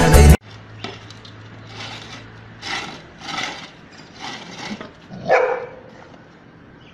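Background music cuts off just after the start. Then a dog makes several short rough vocal sounds, and about five seconds in gives one louder bark that drops in pitch.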